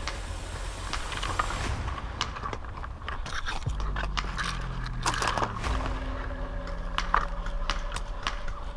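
Crunching and scraping of movement over dry ground cover, with scattered sharp clicks throughout.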